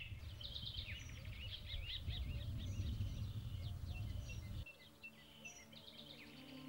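Dawn chorus of birdsong: many small birds chirping and twittering at once, over a low background rumble that stops about two-thirds of the way through.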